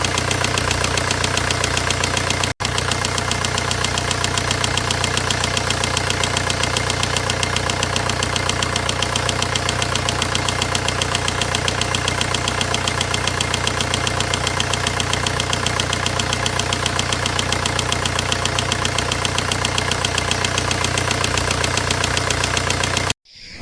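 Volkswagen 1.9 diesel engine idling with a fast, even knocking rhythm, the abnormal engine noise being demonstrated. The sound drops out for an instant about two and a half seconds in and cuts off just before the end.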